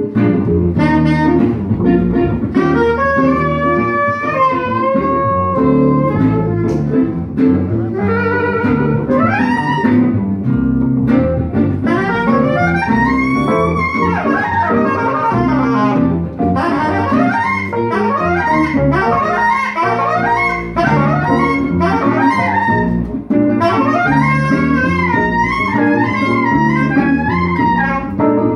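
A live jazz group playing: a saxophone carries a moving melodic line over plucked upright double bass, electric keyboard and acoustic guitar.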